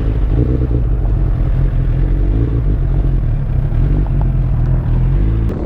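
Motorcycle running, heard as a loud, steady low rumble with heavy wind noise on the rider's helmet-mounted microphone; the sound changes abruptly near the end.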